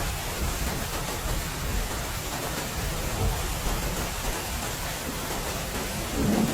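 Heavy rain falling steadily, with a low rumble of thunder starting to swell near the end.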